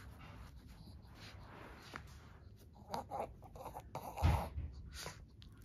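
A Shih Tzu playing with a cloth mouse cat-toy on carpet: scuffling and rustling as she shakes it, with her breathing. A dull thump about four seconds in is the loudest sound.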